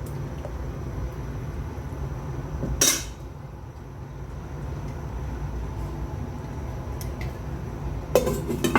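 Metal cooking utensils clattering against a cooking pot: one sharp clank about three seconds in and a quick run of clinks near the end, over a steady low hum.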